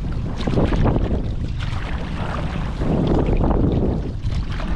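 Wind buffeting the microphone over water splashing around a sea kayak on the move, with irregular splashes from the paddle.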